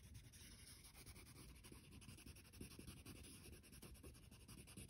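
Faint scratching of a wax crayon rubbed across paper.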